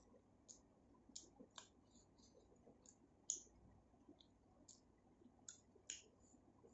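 Quiet eating sounds: soft, irregular wet clicks and smacks, a few a second, the loudest about three seconds in.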